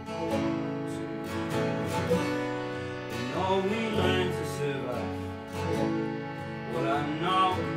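Live acoustic folk music: a Gibson J-45 acoustic guitar and a picked five-string banjo over steady held chords from a hand-pumped Indian harmonium. A voice sings two short phrases, one around the middle and one near the end.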